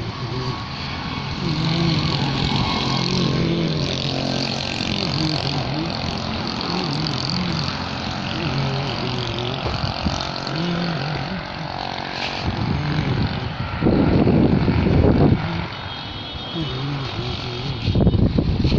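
Engine of a sugarcane crusher running steadily, its pitch wavering slowly up and down. Wind buffets the microphone for a second or so about two-thirds of the way through, and again near the end.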